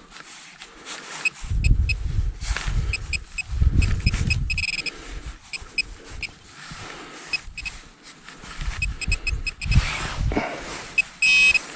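Handheld metal-detecting pinpointer probing loose soil, giving short high beeps on and off and a longer beep near the end, over the scraping and rustling of dirt being worked by hand. It is signalling a buried target that the detectorist suspects is aluminium trash.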